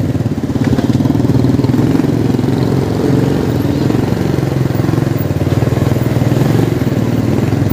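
Small motorcycle engine running steadily with a fast, even pulse while riding.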